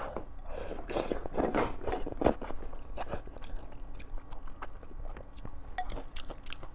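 Close-miked chewing of soft wontons in chilli broth: wet mouth sounds with many small smacking clicks.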